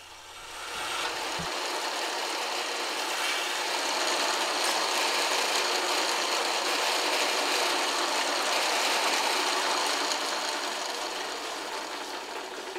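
Hacksaw blade held against the spinning steel drive shaft of a running Boice Crane bandsaw, cutting off the shaft's overhang in a steady, continuous grinding of metal on metal. It builds up over the first second and eases slightly near the end.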